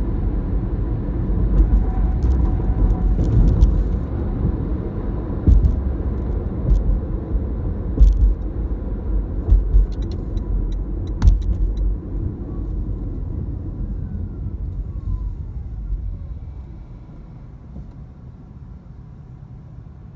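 Road and tyre noise heard from inside a moving car, with a few sharp thumps, as the car slows down. A faint falling whine comes as it decelerates, and the noise drops to a quiet steady hum once it comes to a stop about sixteen seconds in.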